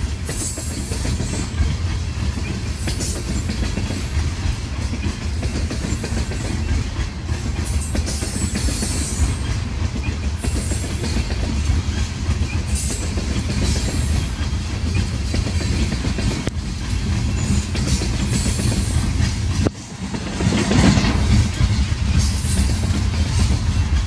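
Loaded coal hopper cars rolling past, their steel wheels clattering and rumbling steadily over the rails. About twenty seconds in the sound dips briefly, then swells louder for a moment.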